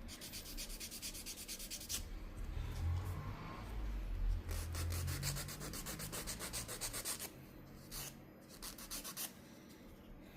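A nail file rubbing across a fingernail in rapid back-and-forth strokes, shaping the repaired nail, with short pauses near the end.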